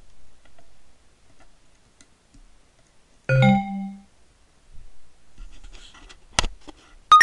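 Electronic computer chimes as the e-reader is docked in its sync cradle and connects. A short two-note chime comes about three seconds in, a click follows, and a quick rising chime sounds near the end as ActiveSync picks up the device.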